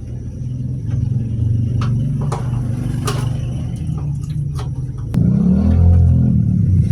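A motor running with a steady low hum that grows louder and shifts in pitch about five seconds in, with light clicks and taps over it.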